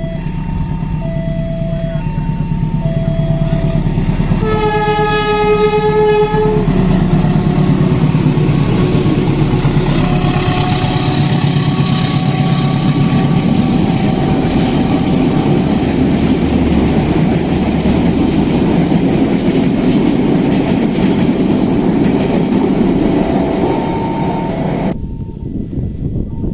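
Level-crossing alarm sounding its two alternating tones, then a train horn blows once for about two seconds. A train then passes with a loud, steady rumble and wheel clatter for most of the rest, the two-tone crossing alarm still heard faintly near the end.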